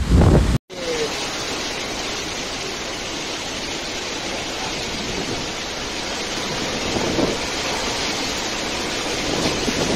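Typhoon wind and heavy rain, a steady rushing hiss of downpour on pavement and trees. In the first half second, wind buffets the microphone in a low rumble that cuts off suddenly.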